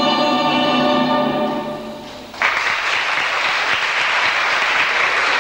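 Music ending on a long held chord that fades away, then an audience applauding, starting suddenly about halfway through and keeping on.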